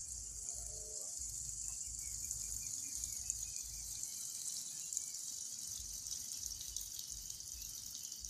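Steady high-pitched shrill hiss of a night insect chorus, with an uneven low rumble on the microphone underneath.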